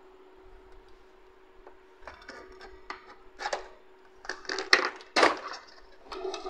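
Plastic clicks and knocks from an Epson ink-tank printer's casing and scanner unit as it is handled and lifted open. The sharpest knocks come in a cluster in the second half, over a faint steady hum.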